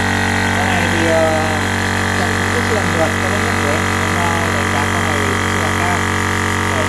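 Yanmar-branded electric high-pressure PCP air compressor running steadily with a low hum, building pressure toward its preset 200-bar automatic shut-off.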